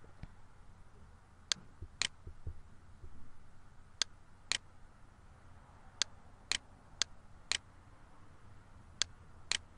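Computer mouse button clicking: about ten short, sharp clicks, mostly in pairs about half a second apart, as points of a sketch line are placed in a drawing program.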